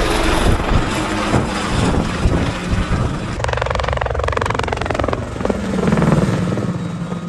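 CH-77 Ranabot ultralight helicopter in flight: its rotor chop and engine. About halfway through the pitch falls as it passes close by.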